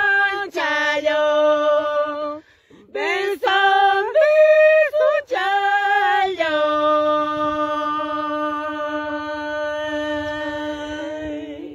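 A woman singing a Quechua maize-sowing harawi unaccompanied, one voice alone: short phrases with sliding notes and a brief pause for breath, ending on one long held note of about five seconds that fades slightly near the end.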